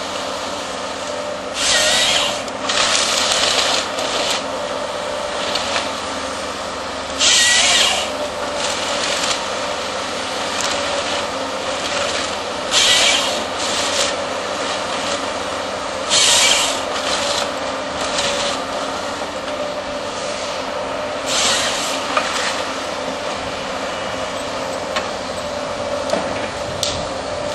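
AFM 58 Husky harvester head working on a Volvo excavator: a steady machine hum from the engine and hydraulics, broken about five times by short, loud bursts of the head's chain saw cutting through wood.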